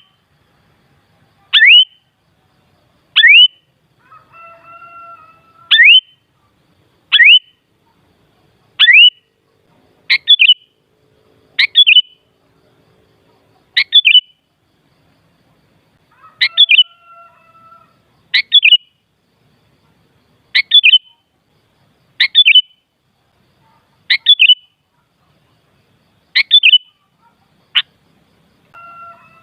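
Sooty-headed bulbul (kutilang) calling: short, sharp upward-sweeping whistled notes repeated about every one and a half seconds, with a softer, lower call twice in between.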